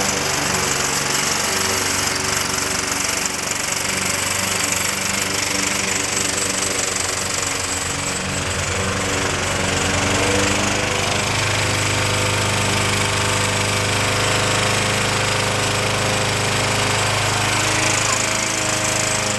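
Walk-behind lawn mower engine running steadily on a fuel-vapor feed, its low hum growing a little stronger about halfway through.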